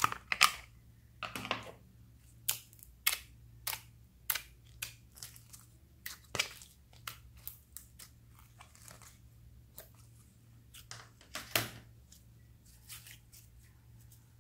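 Pink glitter slime peeling away from a plastic container and being pulled and stretched by hand: an irregular run of sharp, sticky clicks and pops, loudest in the first second and again late on.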